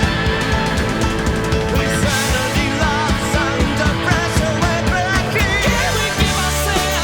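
Background rock music with drums, guitar and a singing voice.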